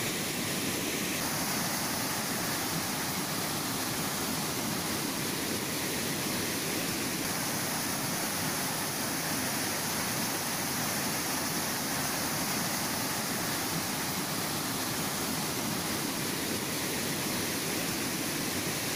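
Steady rush of floodwater pouring down a rocky cutting and flowing fast across a railway track, with a slight change in tone about a second in.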